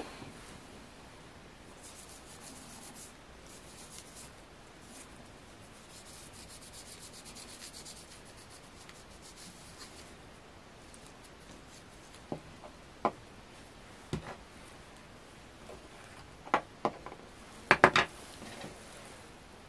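A cotton pad rubbing over a small plastic pump valve plate, wiping off dark combustion residue. In the second half come several sharp clicks and taps as small parts are handled on the table, the loudest a quick cluster near the end.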